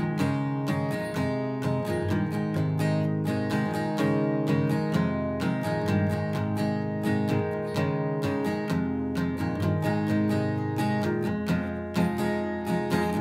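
Acoustic guitar with a capo on the neck, strummed steadily through a chord progression.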